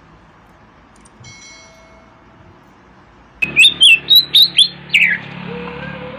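Oriental magpie-robin (kacer) singing: after a faint start, a loud run of sharp, high whistled notes breaks in suddenly about three seconds in, then trails off into softer, lower notes.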